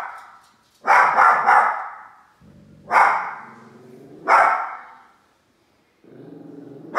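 Small dog barking: two barks in quick succession about a second in, then single barks at about three and four and a half seconds, followed by a low steady growl from about six seconds in.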